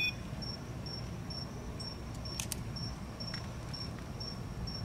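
A cricket chirping steadily in the dark: short high chirps repeating evenly about twice a second over a low background hum.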